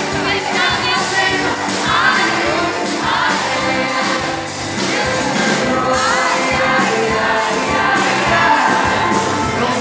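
Live concert music: a woman singing into a microphone over a band with acoustic guitar and drums keeping a steady beat, with voices from the audience singing along.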